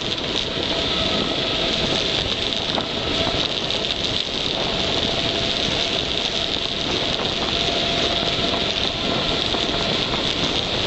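Steady rush of wind over the microphone and a KTM Tombstone mountain bike's tyres rolling fast on tarmac, with a faint hum that comes and goes.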